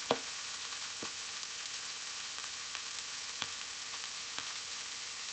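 Butter melting and sizzling: a steady high hiss with scattered sharp pops, the loudest just after the start.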